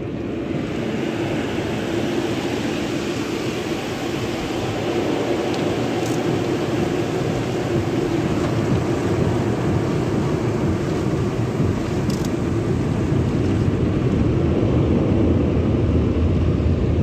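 Sonny's tunnel car-wash equipment heard from inside the car: water spraying over the body and glass while the wash machinery runs, a steady rumble and hiss that grows louder near the end as jets hit the windshield.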